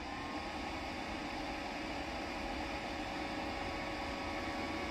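Cooling fan of a HITBOX HBM200 flux-core welder running just after switch-on, drawing power from a portable power station: an even fan hiss with a steady whine.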